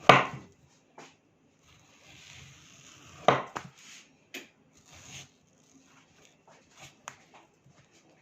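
Knife slicing a peeled ripe mango on a cutting board: irregular knocks of the blade on the board, the loudest right at the start and about three seconds in, with a short scraping in between.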